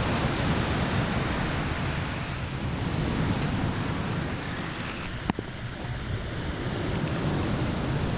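Ocean surf washing on a beach, a steady rush of waves. A single sharp click about five seconds in.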